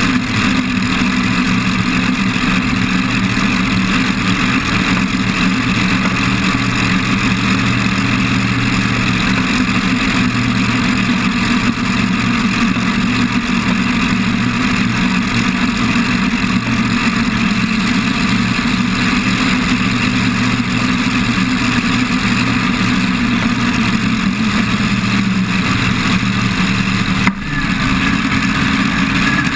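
Supercharged V8 engine of a drag-racing altered idling steadily, heard up close from a camera mounted on the car, with a brief dip in level near the end.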